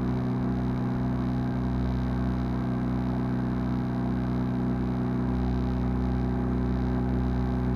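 A sailboat's engine running steadily at constant speed under way, heard on board as an even low hum that does not change.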